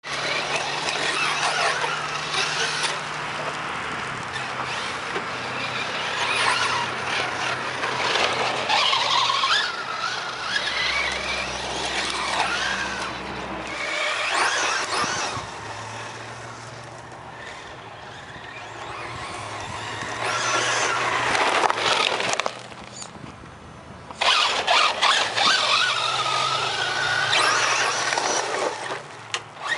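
Electric motor of a 1/8-scale RC truck (Thunder Tiger EB4 G3) whining up and down in pitch as the truck accelerates and slows, with its tyres scrabbling on loose dirt.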